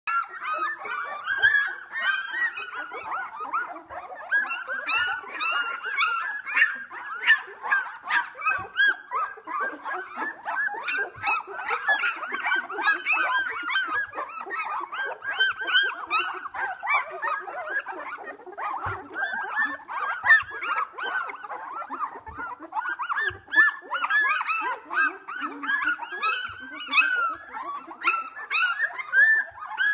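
A litter of two-week-old Australian Labradoodle puppies whimpering and squeaking. Many small voices overlap in a continuous stream of short, high, arching calls.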